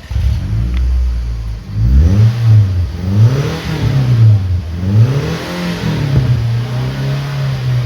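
2003 Toyota Camry's exhaust through a new Magnaflow muffler. The engine starts on a low steady note, is revved up and back down about three times from about two seconds in, then settles to a steady, slightly higher note.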